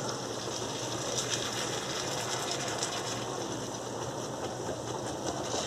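Tomato sauce simmering and sizzling in a frying pan around frying eggs: a steady crackle with small pops. The sauce is starting to bubble up, which is why the heat has been turned low.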